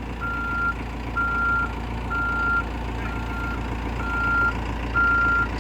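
Backhoe's reverse alarm beeping steadily, about one half-second beep per second, the sign that the machine is in reverse gear. Its diesel engine runs underneath.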